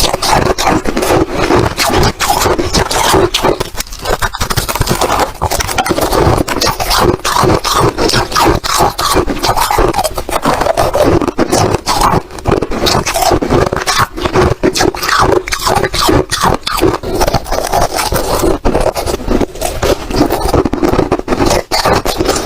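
Ice crunching continuously: dense, rapid crackling and scraping that keeps going without a break.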